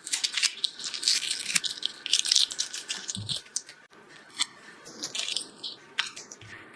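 Aluminum foil tape being handled: crinkling and crackling of the foil and its backing, dense over the first three seconds and sparser after.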